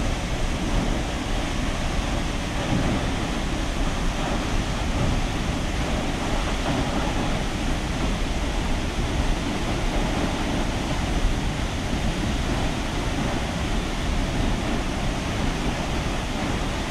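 Tall waterfall's falling water: a steady, loud rushing noise with no let-up.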